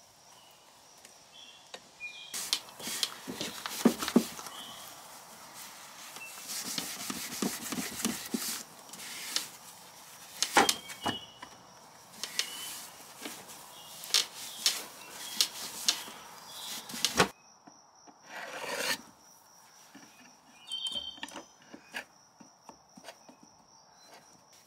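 Steel wool scrubbing a wooden drawer wet with paint stripper and mineral spirits: rough, scratchy rubbing strokes. It starts about two seconds in and stops abruptly around seventeen seconds, followed by a few fainter scrapes.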